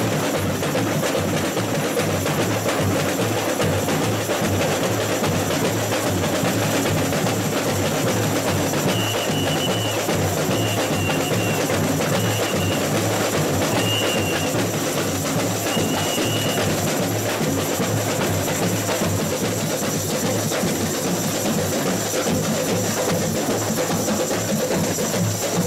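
A samba school bateria plays together: surdo bass drums, caixa snare drums and tamborins keep up a dense, steady samba groove. In the middle a whistle sounds in five short blasts.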